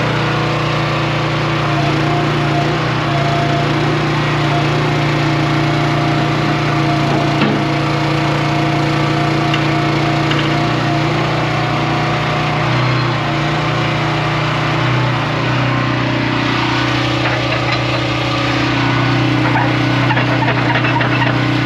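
Heavy diesel engine running steadily, its pitch shifting slightly in the last few seconds.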